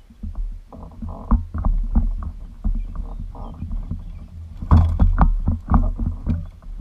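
Irregular thumps and knocks over a low rumble from movement in a small fishing boat, the heaviest cluster of knocks coming near the end.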